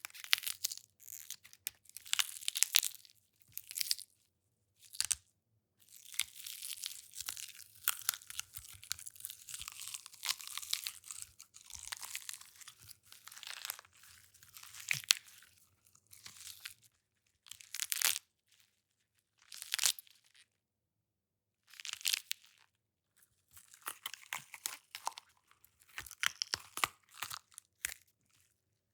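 Foley recordings of fruit and vegetables (celery, walnuts, grapefruit, peppers) being crushed, broken and squished: a series of wet crunches, snaps and tearing sounds, made for gore sound effects. They come in separate takes of a second or a few seconds, with short silences between them.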